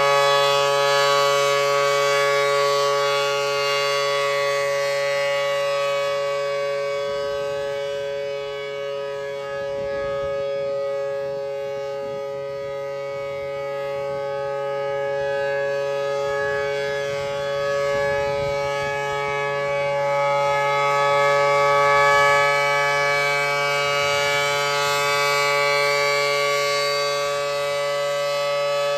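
ACA P-10 outdoor warning siren sounding a steady two-tone wail, its loudness slowly swelling and fading. It runs a little slow, which the owner puts down to a bad run winding in its motor.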